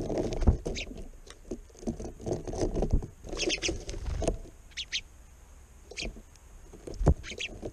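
House sparrows fluttering and splashing at a bird bath close to the camera, in irregular bursts, with short chirps now and then. Two sharp knocks stand out, one about half a second in and one near the end.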